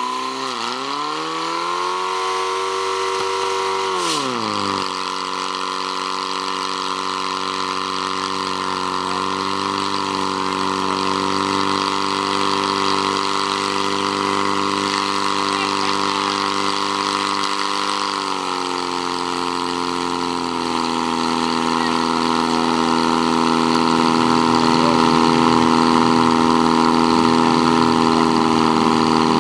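Portable fire pump's engine running hard while it pumps water out through the attack hoses. Its pitch sags about a second in and dips low around four seconds as it takes the load, then holds steady, and it rises slightly and grows louder about twenty seconds in.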